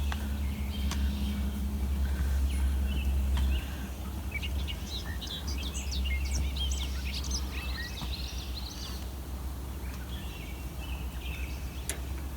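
Small birds chirping and twittering, busiest in the middle, over a steady low rumble that drops in level about three and a half seconds in.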